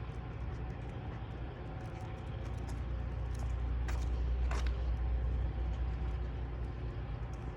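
A motor vehicle going by on the street: a low steady rumble that swells around the middle and eases off, with a few light clicks.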